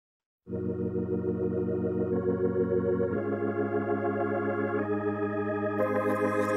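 Background music: after a brief silence, a new track begins with sustained organ-like keyboard chords that change every second or so, and a brighter, hissing high layer joins near the end.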